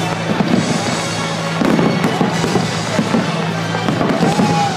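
Fireworks display: aerial shells bursting in quick succession with dense crackling and popping, over music.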